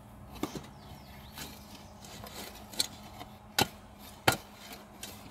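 A steel shovel blade striking hard, stony dry soil while digging: several sharp, irregular knocks, the two loudest about three and a half and four and a quarter seconds in.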